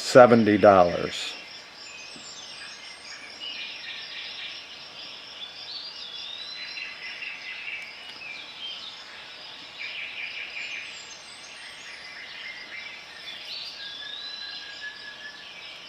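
Outdoor background ambience: birds chirping on and off over a steady high hiss.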